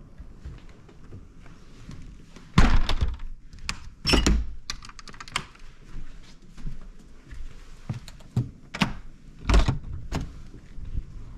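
A series of dull thunks and knocks with lighter clicks between them. The loudest come about two and a half seconds in, about four seconds in, and twice near the end.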